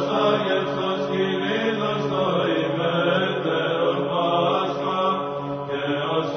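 Orthodox church chant: voices singing a slow melody over a steady, held low drone note.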